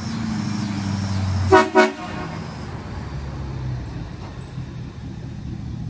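Two short toots of a Ford Super Duty pickup's horn about a second and a half in, over the truck's engine running steadily as it pulls up.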